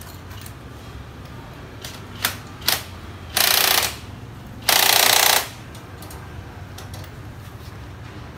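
Handheld cordless impact driver run in two short hammering bursts about a second apart, the second a little longer, after a couple of light clicks.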